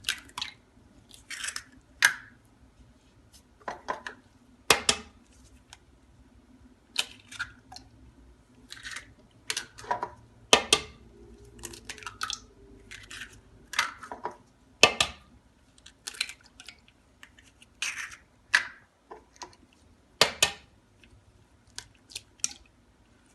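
Eggs being cracked one after another against the rim of a bowl: repeated sharp taps and cracks of eggshell at irregular intervals.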